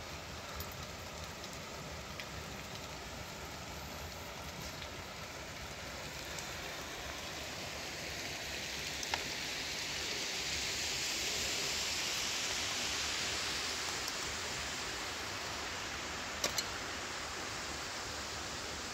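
A steady rush of running water from a rocky mountain stream and small waterfall, swelling about halfway through, with a few faint clicks.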